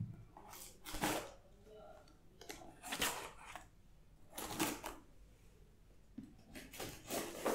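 Box cutter slicing through packing tape and cardboard on a parcel, in four short strokes, the last one near the end the longest.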